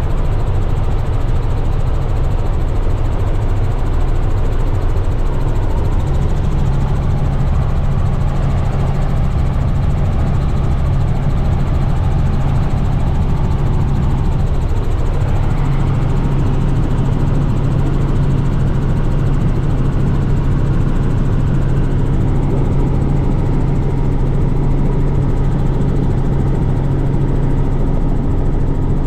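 Helicopter engine and rotor noise heard inside the cabin in flight: a loud, steady drone with a low hum that grows stronger about six seconds in.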